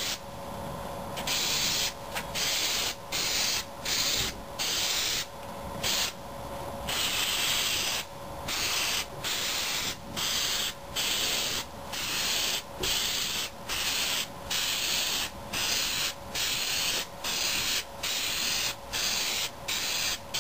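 Aerosol spray can of undercoating hissing in repeated short bursts, about one a second with brief gaps, and one longer burst about seven seconds in, as the coating goes onto a steel gas tank.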